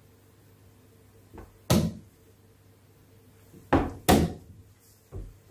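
Chess moves being played by hand: pieces set down on a wooden board and the chess clock's button struck. A light tap comes first, then four sharp knocks: one about a second and a half in, two close together around four seconds, and a last one about five seconds in.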